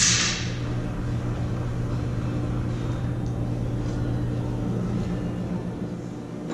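Power-Pole Micro Anchor's electric motor running steadily with a low hum, driving the spike pole up and out of the unit; the hum dies away near the end.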